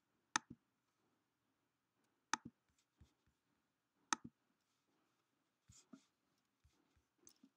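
Sparse sharp clicks of a computer mouse and keyboard: three distinct clicks about two seconds apart, then a few fainter taps near the end.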